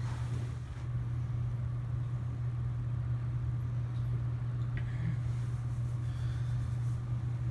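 A steady low hum that does not change, with a faint click about five seconds in.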